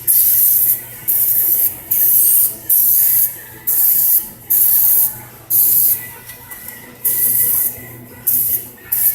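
Oven cleaner sprayed onto greasy pistons in about ten short bursts of hiss, each about half a second long, with a longer pause partway through.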